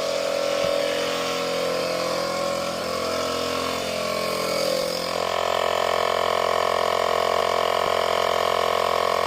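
Portable electric tire inflator running steadily with a motor whine while pumping air into a car tire; its tone shifts about five seconds in and then holds steady.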